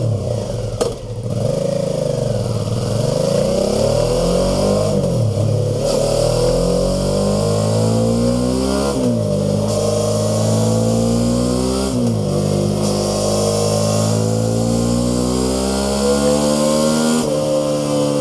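Suzuki V-Strom 650's 645 cc V-twin engine, breathing through its stock exhaust, running stationary and being revved over and over. The engine note rises and falls, with quick blips about halfway and two-thirds through, and it is held at higher revs near the end.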